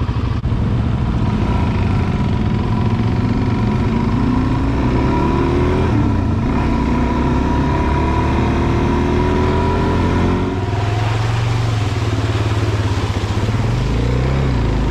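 Adventure motorcycle engine under way on a dirt trail, rising in pitch as it accelerates through the gears, with gear changes about six seconds in and again around ten and a half seconds.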